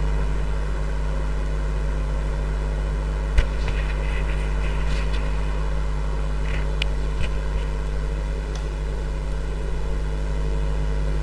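Steady low hum with an even background hiss, broken by a few faint clicks, the sharpest a little over three seconds in.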